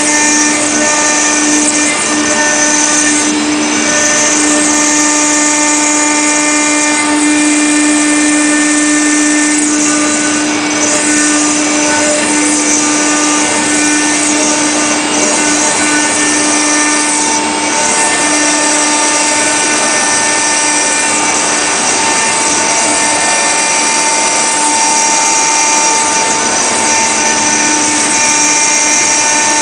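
Stone CNC router spindle carving a relief in marble with a water-cooled bit: a steady whine of the spindle over the continuous grinding hiss of the cutter in the stone.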